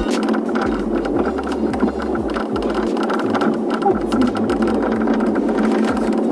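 Car cabin noise while the car is being driven, with a dense rattling texture, under background music whose deep bass repeatedly slides down in pitch.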